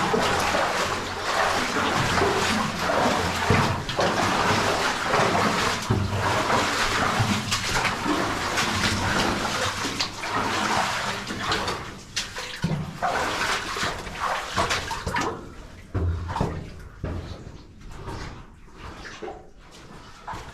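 Water running and splashing in a cave stream. It grows quieter after about fifteen seconds, leaving scattered knocks.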